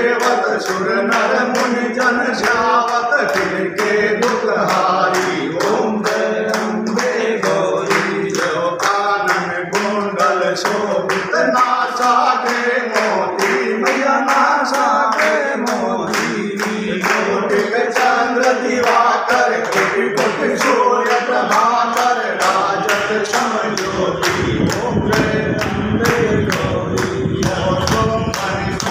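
A group of worshippers singing a Hindu devotional aarti to the goddess in unison, with steady rhythmic hand-clapping about twice a second.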